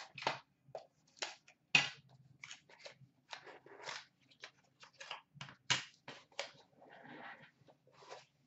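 Handling noise from a cardboard trading-card box being opened by hand: a run of irregular crackles, rustles and taps as the box is pulled apart and the cards are taken out, with the sharpest taps a little under two seconds in and near six seconds in.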